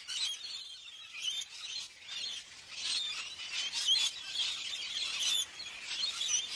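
A flock of rainbow lorikeets calling, many short high-pitched calls overlapping without a break.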